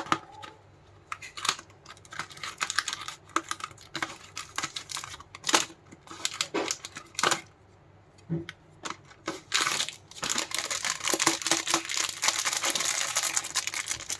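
Candy wrappers crinkling and being torn open, with scattered sharp rustles and clicks at first, then continuous dense crinkling from about ten seconds in.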